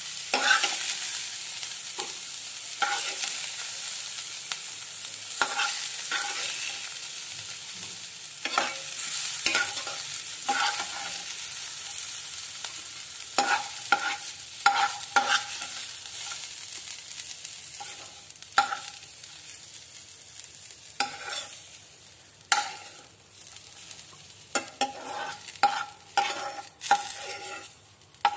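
Sliced onions sizzling in hot oil in a nonstick kadai while a steel spoon scrapes and knocks against the pan, scooping them out. The sizzle fades steadily as the pan empties, and the spoon's clinks stand out more toward the end.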